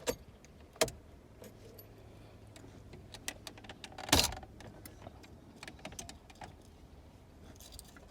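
Electric exhaust cutout being tested by remote: scattered clicks and knocks, two of them sharper about a second in and about four seconds in, over a faint steady hum from its small electric actuator motor.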